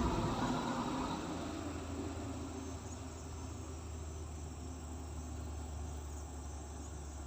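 Heavy diesel machine's engine fading away over the first few seconds, leaving a steady low engine hum.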